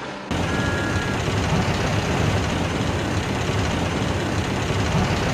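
Diesel locomotive engine sound effect running steadily with a low rumble. It comes in abruptly just after the start, with a short high tone about half a second in.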